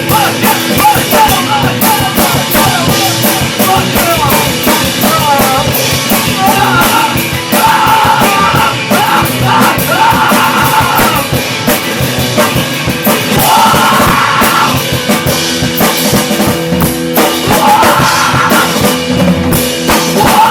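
Rock band demo recording: a full drum kit hitting in a steady, fast beat under the rest of the band.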